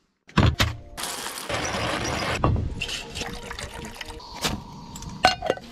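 Water poured from a plastic bottle into a camping mug, splashing in a loud steady rush for a second or two, then running on more quietly. A few knocks from handling the bottle and mug come just before the pour and again near the end.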